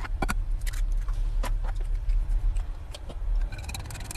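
A few scattered clicks and taps, then, about three and a half seconds in, chopsticks start beating raw eggs in a bowl: a fast, dense clicking of wood against the bowl. A steady low rumble runs underneath.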